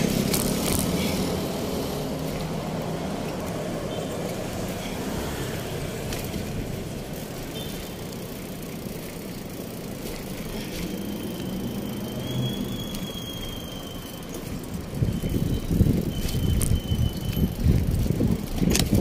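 Bicycle ride on city pavement: a steady low rumble of the moving bike and air on the microphone, with a thin high squeal for about two seconds around twelve seconds in. From about fifteen seconds the rumble grows louder and more uneven.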